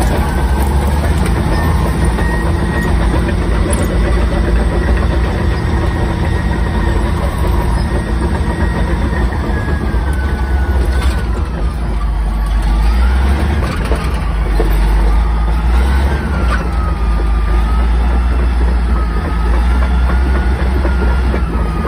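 Cat D8 bulldozer's diesel engine running steadily, heard from the operator's seat: a heavy low rumble with a high whine that rises and falls in pitch, and a few brief knocks in the second half.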